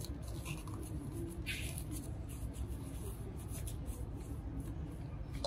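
Hands rubbing and pressing fabric padding into the lining of a small plastic helmet: soft, irregular rustling and scraping over a steady low hum.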